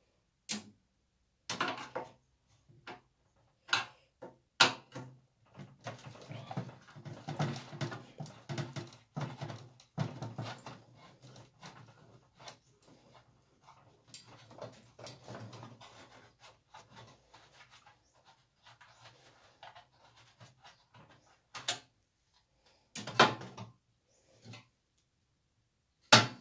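Sheet metal and parts of a microwave oven being worked by gloved hands during teardown. There are sharp metallic clicks and knocks, and between them longer stretches of scraping and rattling as a steel panel is worked loose.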